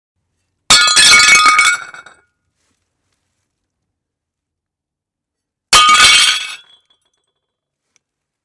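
Ceramic plates smashing, twice: each a sudden crash followed by ringing, clattering shards that die away within about a second and a half, the second about five seconds after the first.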